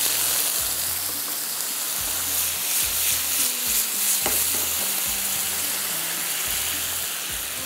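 Water just poured into a pan of hot oil browned to a golden colour, hissing and sizzling hard as it bubbles and steams. The hiss eases off slightly over the seconds.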